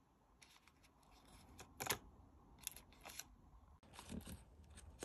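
A few faint, scattered clicks and light taps, like small objects being handled.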